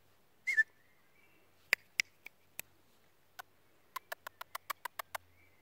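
Sharp clicks: a few spaced apart, then a quick run of about seven a second near the end, with a short high chirp about half a second in.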